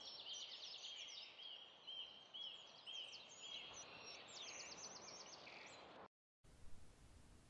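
Faint forest ambience of songbirds: a short arching whistle repeated about twice a second with quick high trills and chirps over it, cutting off abruptly about six seconds in, then faint room hiss.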